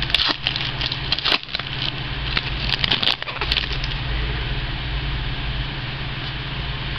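Trading cards handled and shuffled close to the microphone: a run of crackles and dry clicks for about the first three seconds, then only a steady low hum with a hiss.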